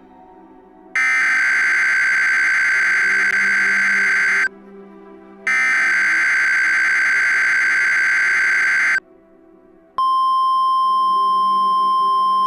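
Emergency Alert System SAME header data bursts, a harsh buzzy warble, sounding twice with about a second's gap between, then after another short gap the steady single-pitch NOAA Weather Radio warning alarm tone starts about ten seconds in and holds. Together they signal the start of a tornado warning broadcast.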